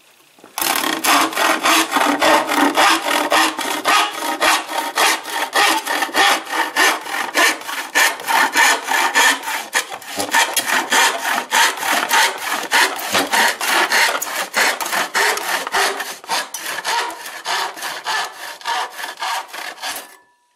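Antique hand saw cutting across a thin wooden board: steady back-and-forth rasping strokes, about three a second, which start about half a second in and stop near the end as the piece is cut off.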